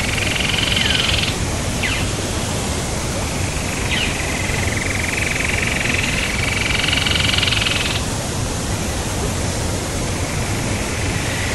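Steady rush of a waterfall, with a high trilling animal chorus that runs for stretches of a few seconds and stops, and a few quick falling chirps in the first four seconds.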